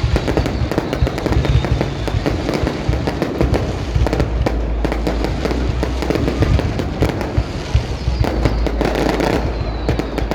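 Fireworks display: a dense, irregular run of bangs and crackles over a continuous low rumble of bursting shells.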